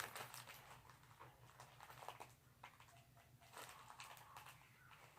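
Near silence, with faint scattered rustles and small taps from a plastic sandwich bag being handled, over a low steady hum.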